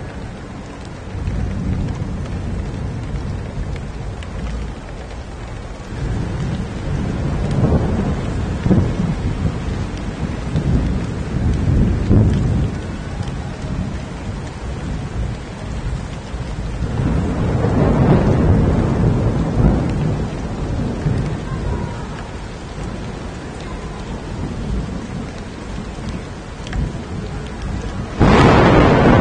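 Heavy rain pouring down on a street, with thunder rumbling in long rolling swells several times. A sudden, loud thunderclap breaks in near the end.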